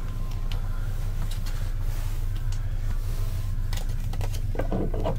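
Steady low hum of the ferry's onboard machinery inside a small ship's cabin, with scattered light clicks and a short run of knocks near the end.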